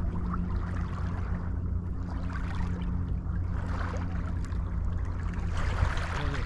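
Small waves lapping and washing over a pebble beach, swelling twice, over a low steady rumble.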